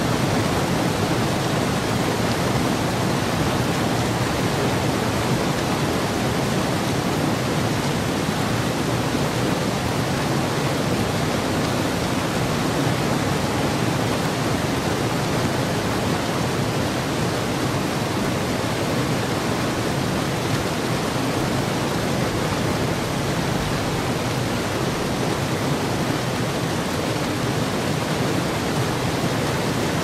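Waterfall rushing, a steady, even noise that stays the same throughout with no distinct splashes or changes.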